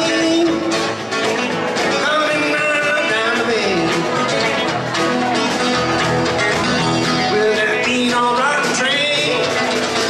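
Live rock-and-roll band of electric guitar, acoustic guitar and drums playing an instrumental break between vocal lines, the electric guitar taking a melodic lead with bent notes.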